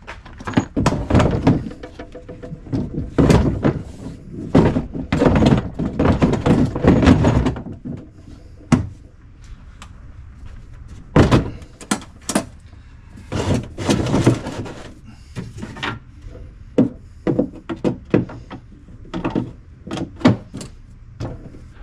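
Gear being loaded into a pickup bed: hard plastic cases and a metal ammo can knocked, dropped and slid against plastic bed drawers and storage boxes. The result is a string of thunks, clatters and scrapes, thickest in the first half and again around the middle, then more scattered.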